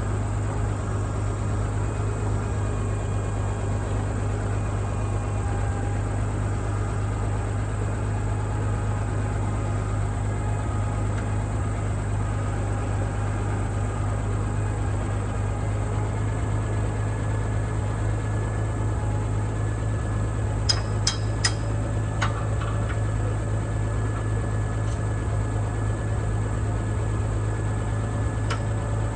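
International 460 Utility tractor engine running steadily with a constant low hum. A few sharp metallic clicks come about two-thirds of the way through, and one more near the end.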